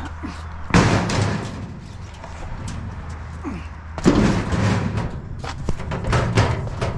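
Scrap metal being thrown into the back of a trailer: a loud clattering crash about a second in and another about four seconds in, followed by several lighter clanks.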